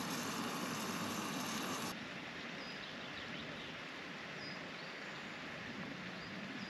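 Rump steaks frying in butter in a mess tin on a gas camping stove, a steady hiss close by that drops away suddenly about two seconds in. A quieter outdoor hush follows, with a few faint bird chirps.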